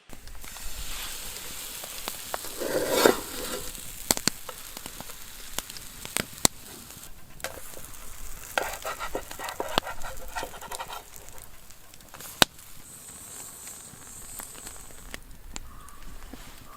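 Food frying in a pan: a steady sizzle with sharp clicks and knocks scattered through it.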